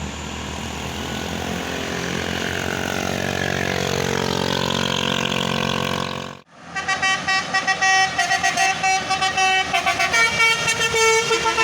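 A bus's engine rises steadily in pitch as it speeds up. After a brief break about six seconds in, a multi-tone Basuri telolet horn plays a rapid melody of short pulsed notes.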